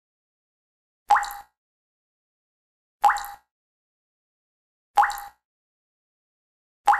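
Water dripping slowly and regularly from a leaky showerhead: four single drops, about one every two seconds, each a short plop with a quick upward pitch glide, and silence between them.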